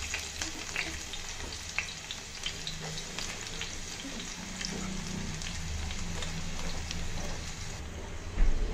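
Sliced onions frying in hot oil in a steel pot: a steady sizzling hiss with many small crackling pops, and a low thump near the end.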